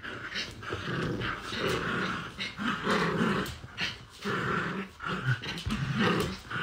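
Two small dogs play-fighting, growling at each other in a quick run of short, rough growls.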